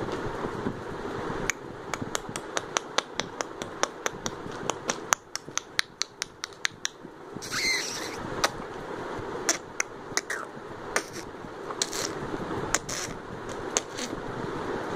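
A rapid run of sharp clicks, about three or four a second, with a short hiss about halfway through, after which the clicks come only now and then.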